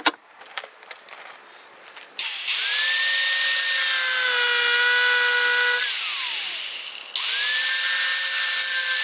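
Handheld power tool motor run twice under load, about three and a half seconds and then over two seconds, with a loud grinding hiss over a steady motor pitch that spins up at the start and winds down with a falling pitch when released. Small handling clicks come before it.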